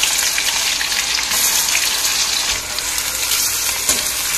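Sliced onions sizzling in hot oil in a kadai: a steady, dense hiss as they deep-fry into birista, crisp fried onions.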